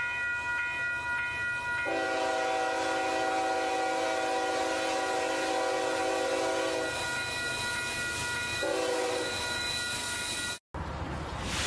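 Freight locomotive's multi-chime air horn sounding a chord as the train approaches: a long blast of about five seconds beginning about two seconds in, then a short blast near the end, over the rumble of the passing train.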